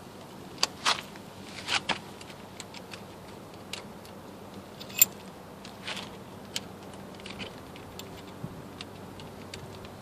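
Scattered metal clicks and clinks of hand work at a rear disc brake caliper, as the caliper piston wind-back tool and brake parts are handled. The sharpest click comes about five seconds in, over a faint steady hum.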